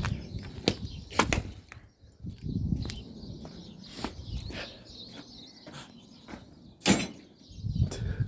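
Irregular knocks, clanks and thuds of a microwave's metal parts being struck and pried apart to free its motor, the sharpest knock about seven seconds in.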